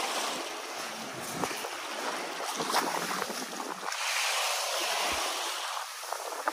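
Small sea waves washing and hissing on the shore, with a fuller wash about four seconds in. Some wind buffets the microphone.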